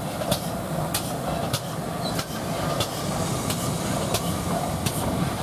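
GWR steam locomotive and its coaches rolling slowly past: a steady low rumble with sharp clicks repeating about every two-thirds of a second.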